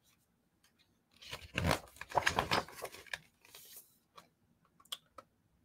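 Pages of a picture book being turned by hand: a paper rustle starting about a second in and lasting a couple of seconds, then a softer rustle and a few light clicks of the book being handled.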